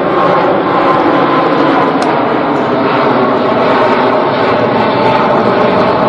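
Jet engines of an Airbus wide-body airliner, a steady loud rush of noise with a faint whine.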